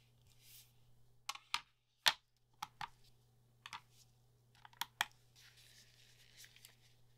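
A series of light, sharp clicks and taps of hard plastic on a tabletop as a pocket digital scale and a plastic mixing cup are set out and handled, about eight in all, the loudest about two seconds in. A soft rustle follows near the end.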